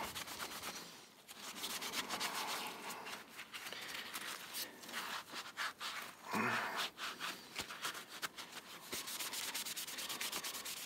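A cloth rag rubbing hard over the steel of an old Stanley chisel in quick back-and-forth strokes, wiping off dried metal polish.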